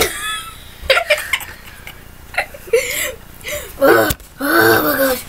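Boys laughing and making pained, wordless vocal noises in reaction to extremely sour candy. It comes as a string of short outbursts with pauses between them, the loudest and longest about four seconds in.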